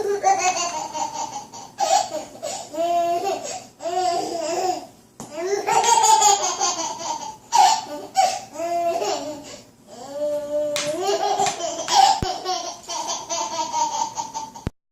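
A baby laughing in repeated high-pitched bursts with short pauses between them.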